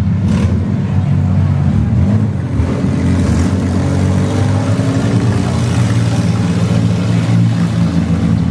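Engines of several demolition derby minivans running hard and revving at once, a dense, steady din of overlapping engine notes that rise and fall as the cars drive and ram.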